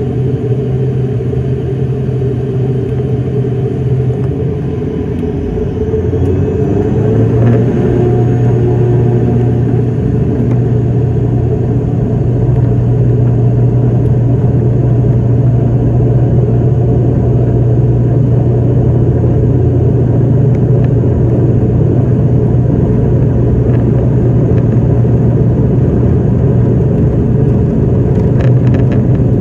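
ATR 42-600 turboprop engine and propeller running while the aircraft taxis, heard from inside the cabin as a loud steady drone with a low hum. About six to seven seconds in the engine note shifts and gets louder as power is added, then holds steady.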